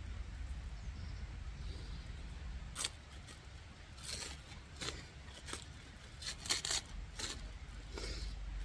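A run of short, sharp, crisp clicks and snips, like hands working with scissors or crinkly material, starting about three seconds in, over a steady low rumble.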